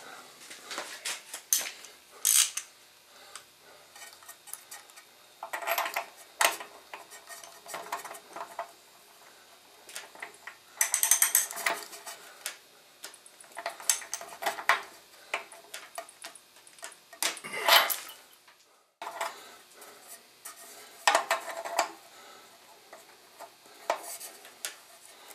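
Metal clinks and rattles from a spark plug and socket wrench being handled as the plug is fitted back into a small gasoline engine and snugged down. The sound comes as scattered sharp clicks and short bursts of clinking.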